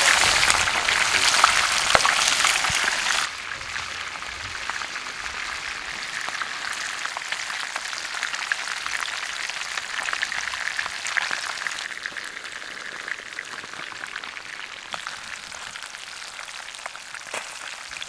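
Fish frying in hot oil, a dense crackling sizzle. It is loudest at first, drops abruptly about three seconds in, and carries on more quietly.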